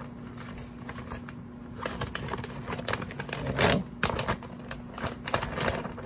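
Crinkling and crackling of a Faraday bag being handled as a portable shortwave radio is slid into it: irregular sharp clicks, with the loudest crackle about three and a half seconds in.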